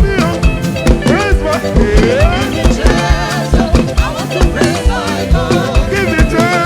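Upbeat African gospel praise music with a steady drum beat and melodic instruments.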